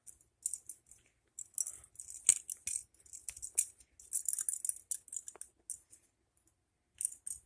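Butterfly knife being handled: its metal handles and latch clink and click against each other in short jangling runs, with one sharper click about two seconds in.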